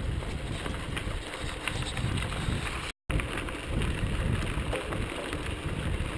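Wind noise on the microphone of a camera mounted on a moving mountain bike, with scattered small clicks and rattles from the bike on the dirt trail. The sound cuts out for a moment about three seconds in.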